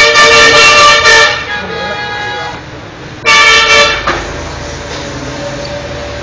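Car horn honking twice with a steady two-tone blare: a blast that stops a little over a second in, then a shorter honk about three seconds in.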